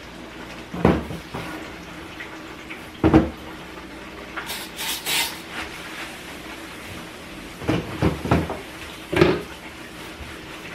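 Kitchen clatter at a sink: about six separate knocks of dishes and cupboard doors, three of them in quick succession a little after the middle, with a short rustle of a paper towel wiping near the middle.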